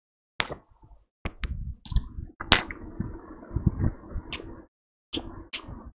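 A handful of sharp clicks and taps spread out over several seconds, with a stretch of low rustling noise in the middle.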